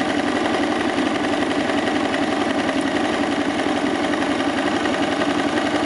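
KTM 950 Adventure motorcycle's V-twin engine idling steadily while the bike stands still.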